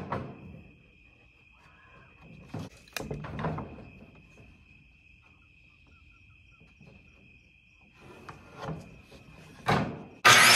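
Crickets chirring steadily, with a few knocks and scrapes of boards being handled. Near the end a corded circular saw starts up loudly.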